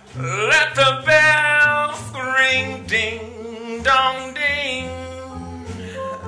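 A man singing a jazz song in a show-tune style, his voice sliding sharply upward into the first phrase, over upright bass accompaniment.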